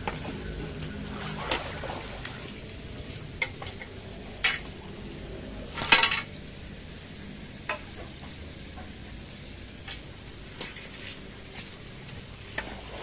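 Scattered splashes and light knocks of water being handled in a netted keep-basket for caught catfish, with one loud, longer splash about six seconds in.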